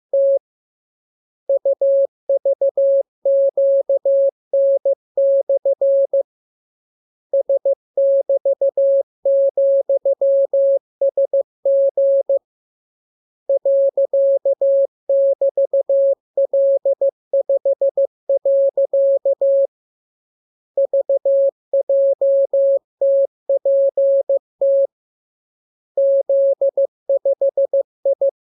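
Morse code (CW) sent as a single steady tone, keyed on and off in short and long beeps (dits and dahs). The code comes in groups of characters, each run lasting several seconds, with a pause of about a second between groups, as in a practice radiogram of letters and signs.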